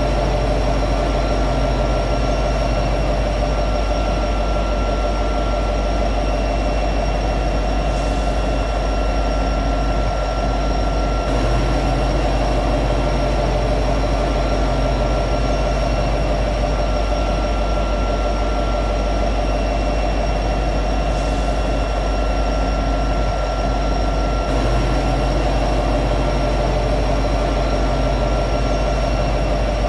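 EMD SD70ACe diesel-electric locomotive running steadily at high idle: its 16-cylinder two-stroke diesel gives a continuous drone with several held tones.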